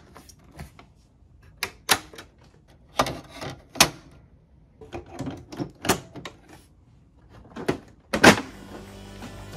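Sharp plastic and sheet-metal clicks and knocks as the tool-less parts of a Sony VAIO RX-450 desktop case are snapped back into place, coming irregularly, a dozen or so in all. The loudest clunk comes near the end as the side panel is pressed on.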